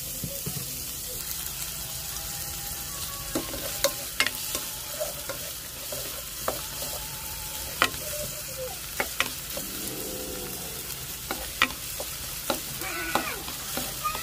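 Chopped onions sizzling in hot oil in a pot as they are stirred, with a steady hiss and sharp clicks of the utensil knocking against the pot.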